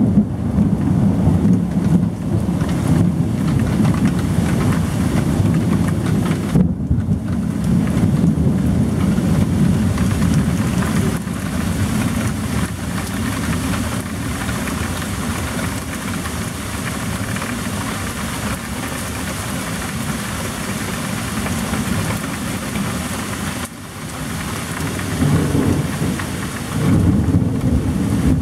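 Thunderstorm: loud, steady rain with a low rumble underneath, dipping briefly near the end and then swelling again.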